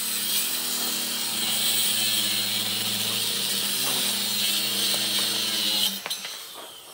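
Maktec circular saw cutting across a thick wooden slab: the motor runs steadily under load with a high hiss of blade in wood. The cut ends and the saw stops abruptly about a second before the end.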